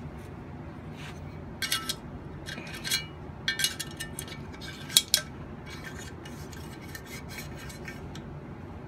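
Metal clicks and clinks from the upper receiver of a 9mm AR-15 being picked up and handled: short clusters of sharp clinks, loudest about five seconds in, over a steady low hum.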